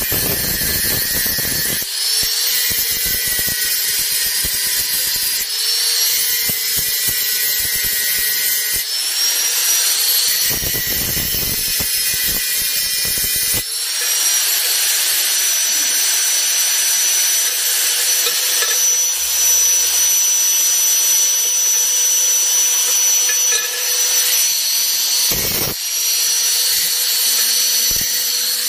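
Electric angle grinder running continuously, its disc grinding a small hand-held metal part. The motor's whine sags in pitch a few times as the disc is pressed hard into the work in the first half, then runs steadier under lighter contact.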